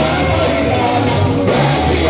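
Loud live music: a woman singing into a microphone over a band with a steady bass line.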